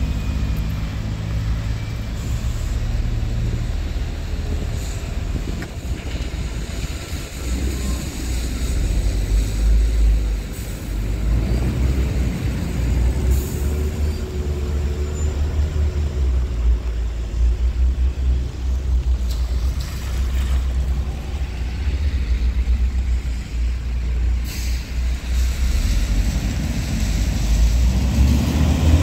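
Road traffic on a wet city street: car engines and tyres on wet asphalt over a deep, uneven low rumble.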